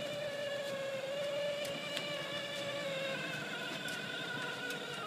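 Electric drive motor and gearbox of a child's battery-powered ride-on toy Land Rover whining steadily as it drives, with a few faint ticks from the plastic wheels; the whine changes tone about three seconds in.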